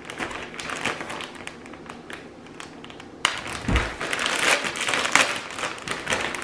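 Plastic bag of shredded cheese crinkling as it is handled and tipped over a bowl, growing louder and denser about three seconds in, with a dull low bump just after.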